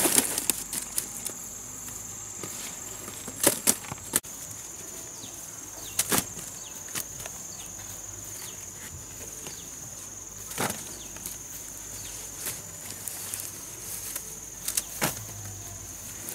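Steady high-pitched drone of insects, with scattered sharp knocks and clicks, two of them in a quick pair.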